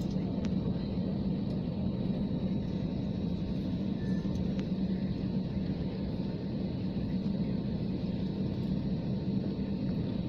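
Airliner cabin noise while taxiing: the engines and cabin air run as a steady low drone, with a faint steady whine above it.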